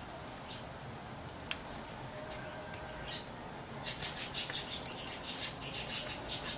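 Small screwdriver clicking and scratching on a MacBook Air's internal parts: one sharp click about a second and a half in, then a quick run of light ticks and scrapes through the second half.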